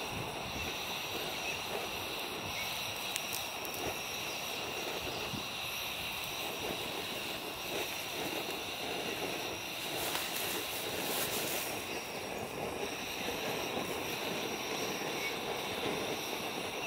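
Steady outdoor ambience of wind and surf, with a few thin, steady high tones running over it and a brief louder swell about ten seconds in.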